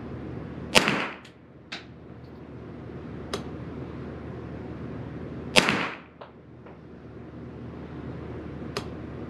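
Two .22 LR rifle shots from a Derya TM22 semi-automatic firing SK Standard Plus ammunition, about five seconds apart, each with a short echoing tail. Several fainter clicks and taps follow the shots.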